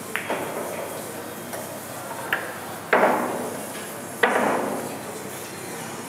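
Pool balls knocking together in hard clacks, several in all, the two loudest about three and four seconds in, each trailing off briefly.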